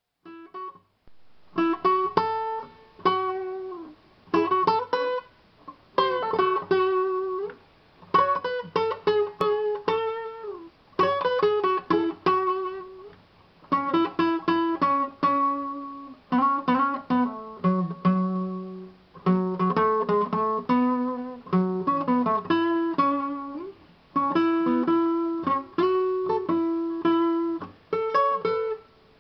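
Acoustic guitar played in short phrases of plucked notes, each phrase lasting a second or two with brief pauses between them.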